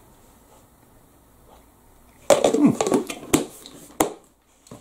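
A man's brief wordless murmur, then two sharp clicks a little over half a second apart.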